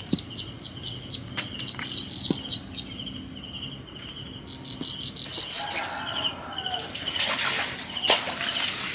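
Crickets chirping in rapid high-pitched trains, several chirps a second. Near the end there is rustling in brush and leaves, with one sharp click about eight seconds in.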